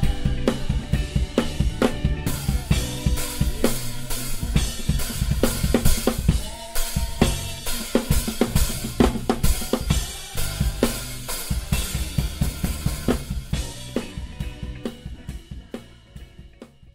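Drum kit played live with music: snare, bass drum, hi-hat and cymbal hits in a fast groove. It fades out over the last few seconds.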